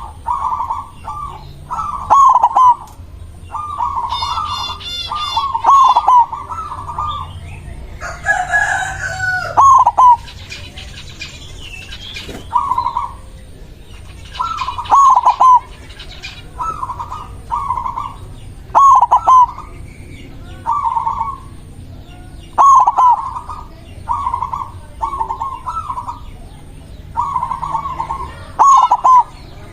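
White zebra dove (perkutut putih) singing: short cooing phrases repeated every second or two, the bird in full song. About eight seconds in, another bird gives one longer, louder call, and brief high chirps sound around four seconds in.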